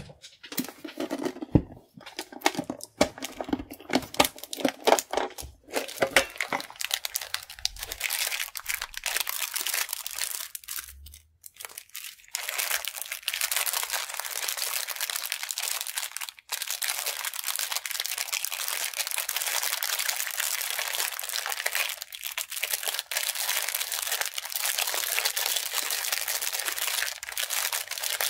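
Clear plastic sticker bags crinkling and rustling as hands sort through a box full of them, continuous from about twelve seconds in. Before that, a run of sharp knocks and rustles.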